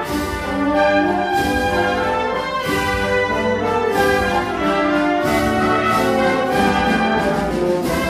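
Spanish wind band (banda de música) playing a slow processional march: sustained brass chords, marked by a percussion stroke about every second and a quarter.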